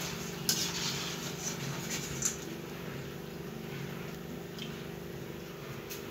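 Sev frying in hot oil in a metal kadai with a steady sizzle, under a low steady hum. A slotted spoon clicks and scrapes against the pan several times as the sev is stirred and lifted out of the oil.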